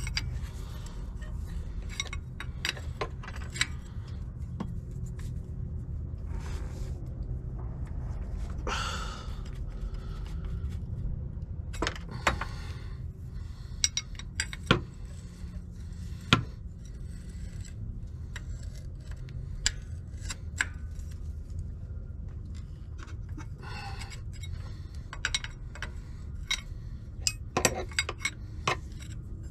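Steel combination wrenches clinking and scraping against each other and the engine's metal fittings: scattered sharp metallic clicks over a steady low rumble.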